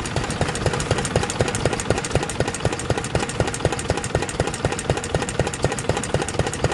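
Early-type Yanmar K4 single-cylinder diesel stationary engine running, with an even beat of sharp firing knocks at a very steady speed.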